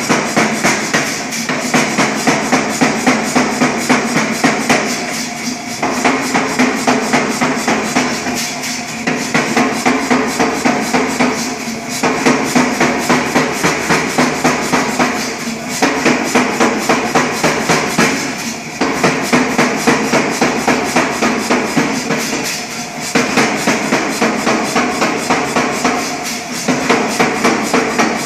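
100 lb Reiter air hammer striking a red-hot 1045 steel bar in rapid runs of blows, several a second, with short pauses every few seconds.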